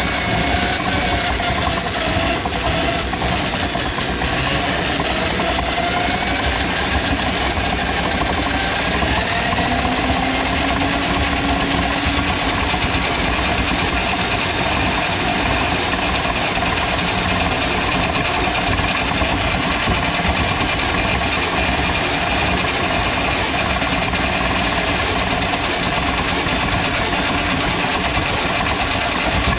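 Drill-powered drum drain auger running steadily, its cable turning inside a kitchen sink drain line plugged with grease.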